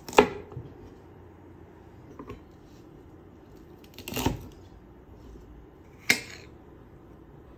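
Chef's knife chopping through asparagus stalks onto a wooden cutting board: a sharp chop at the start, a couple of light knocks, and a heavier chop about four seconds in. Near the end there is a single sharp clink with a short ring, a knife striking a ceramic plate while slicing garlic.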